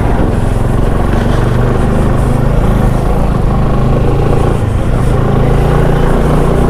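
Motorcycle engine running steadily while riding, a low hum under a steady rushing noise.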